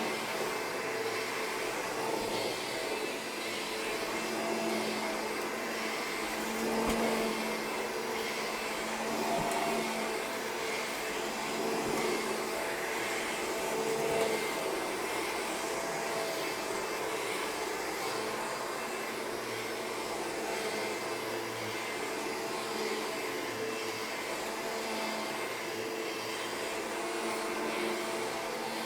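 Upright vacuum cleaner with a motor-driven brush roll running steadily while being pushed back and forth over worn polyester carpet, a steady motor hum whose loudness swells a little with each pass.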